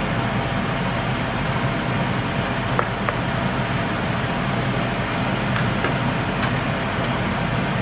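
Pork intestines braising in sauce in a frying pan, stirred with a plastic spatula, under a steady rushing noise. A few light clicks of the spatula against the pan come about three seconds in and again near the end.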